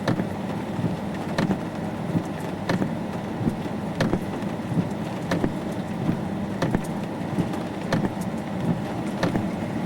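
Scattered raindrops ticking irregularly on a vehicle over a steady low rumble.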